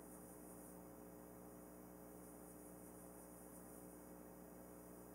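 Near silence: room tone with a faint, steady hum.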